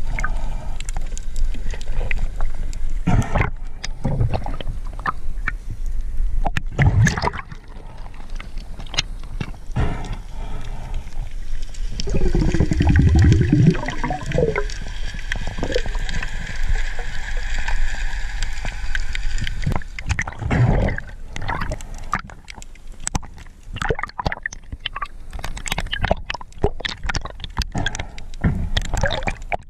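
Underwater sound through a diving camera's housing: gurgling, sloshing water with scattered sharp clicks and knocks while fish are threaded onto a metal stringer. A louder, low bubbling burst comes about twelve seconds in.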